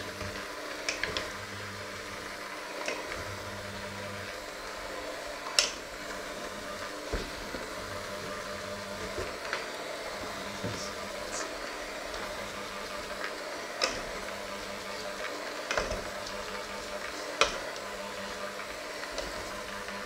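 Electric hand mixer running with a steady motor hum, its beaters working a crumbly mixture in a stainless steel bowl, with scattered sharp clicks as the beaters knock against the bowl, the loudest about five seconds in.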